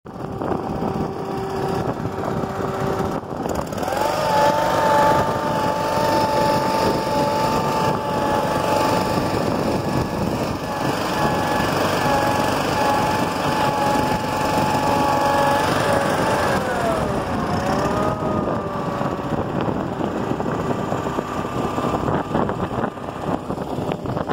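Case 446 garden tractor's engine running, throttled up about four seconds in, held steady, then throttled back down around seventeen seconds and left running at a lower speed, with a whine that rises and falls with engine speed.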